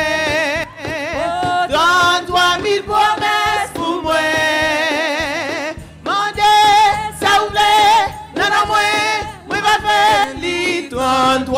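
Gospel praise singing in a worship song: a voice with strong vibrato sings short phrases and holds one long note about halfway through.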